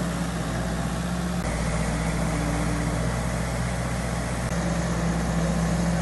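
Small crawler bulldozer's diesel engine running steadily as it clears and pushes soil; the steady drone shifts in tone about a second and a half in and again a few seconds later.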